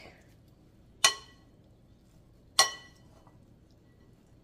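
Two sharp knocks with a short ring, about a second and a half apart: wooden spoons striking the rim of a plastic mixing bowl while a salad is tossed.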